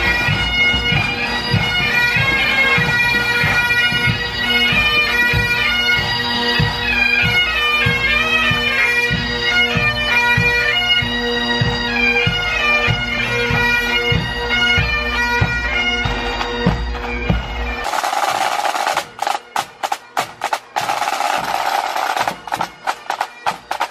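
Pipe band playing: massed Highland bagpipes sounding a melody over their steady drones, with drums beating a regular march rhythm. About eighteen seconds in the pipes stop and the drums carry on alone with sharp, uneven strokes.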